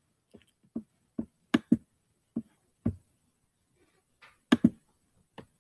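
About a dozen short, irregular clicks and taps of a computer mouse and keyboard, with a pause of about a second in the middle.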